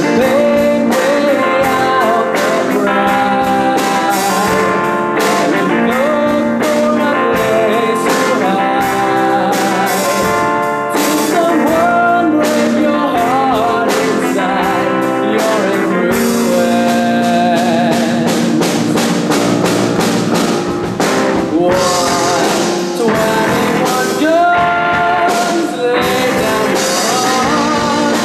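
Live rock band playing: a boy sings over electric guitar, bass guitar and piano, with a steady beat.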